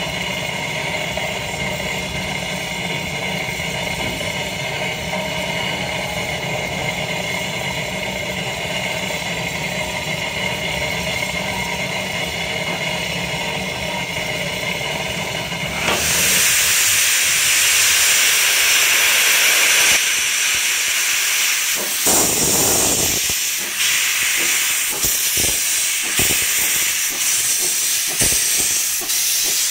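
Steam tank locomotive standing at the platform: a steady hum with several held tones, then about halfway through a loud hiss of venting steam starts suddenly and carries on, rising and falling in surges.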